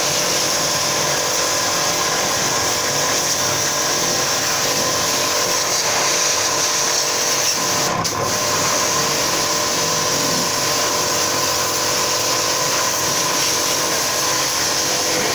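Small pressure washer pump running steadily while its wand sprays a high-pressure water jet onto a motorcycle: a steady hiss of spray over a faint motor hum. The spray drops out for a moment about eight seconds in.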